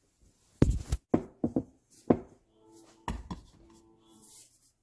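Hands knocking and thumping masa dough balls on a kitchen counter, a quick run of knocks in the first two seconds. After about three seconds a few guitar notes ring faintly.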